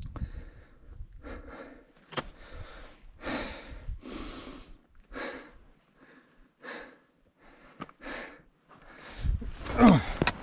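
A hiker breathing hard in short, regular puffs, about one a second, from the effort of climbing steep rock steps. Near the end comes a short sound falling in pitch, the loudest moment.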